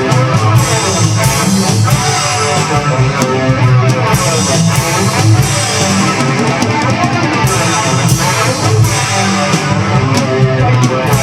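Playback of a multitrack rock mix of guitar and drums, one track given a large-room reverb. It plays loud and steady, with a regular drum beat.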